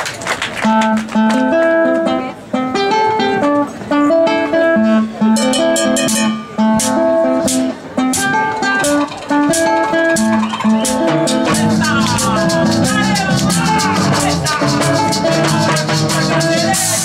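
Live cumbia band starting a song: an acoustic guitar picks a melody line, hand-shaken percussion such as a shaker joins about five seconds in, and a fuller, lower accompaniment comes in about eleven seconds in.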